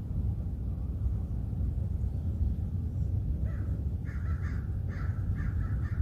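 Crow cawing: a quick series of short, harsh caws starting about halfway through, over a steady low rumble.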